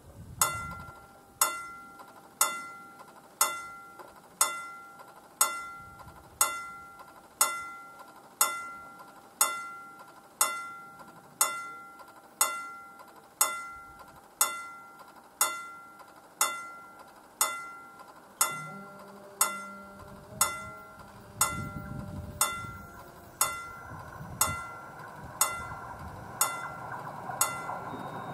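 Level crossing warning bell striking about once a second, each stroke ringing out and fading. About 18 seconds in, a low hum joins while the barrier booms lower, and a rising rush of noise builds near the end as the train approaches.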